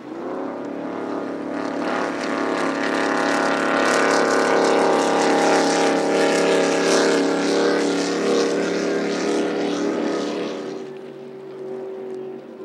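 Superboat Vee class race boat's engine running at high speed. It rises in pitch as it accelerates in the first second, holds a loud steady drone as the boat runs past, and drops away about eleven seconds in.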